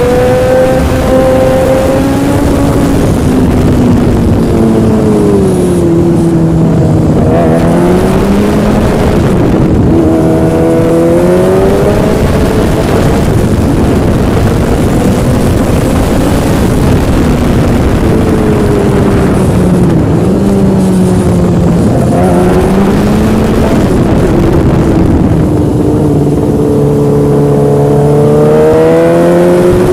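Yamaha motorcycle engine running under way, its pitch rising and falling repeatedly as the rider speeds up and slows down, over heavy rushing noise.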